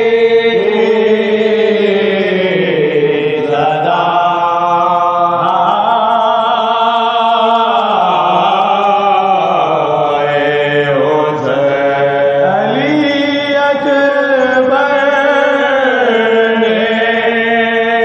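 Soz khwani, a Shia elegiac chant by male reciters: a lead voice sings long, sliding melismatic phrases over a steady held drone note sustained by supporting voices. The drone breaks briefly twice, around four seconds in and again around thirteen seconds in.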